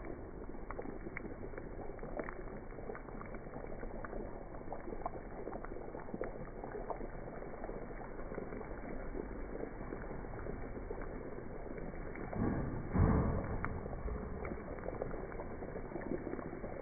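Hot butter and oil sizzling and bubbling steadily in a heavy frying pan around a whole cauliflower as it is basted with a spoon, with fine crackles throughout. The sizzle briefly gets louder about three-quarters of the way through.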